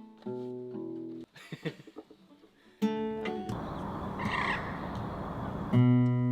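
Acoustic guitar playing the intro to a folk song: a few plucked notes, then strummed chords, with a loud chord struck near the end.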